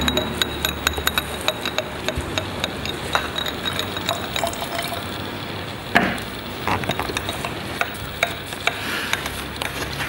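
Paintbrush stirred and tapped in a glass jar of rinse water: quick light clicks of the brush against the glass over a wet, crackly swishing. One louder knock comes about six seconds in.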